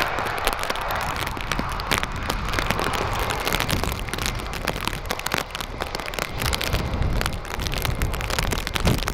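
Rain crackling and pattering on the microphone in strong wind, with a steady low wind rumble underneath.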